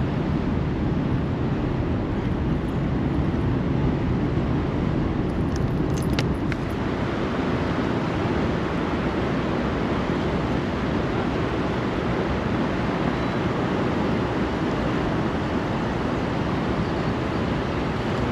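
Steady rushing of fast, turbulent tailwater current below a dam's powerhouse, with a few brief clicks about six seconds in.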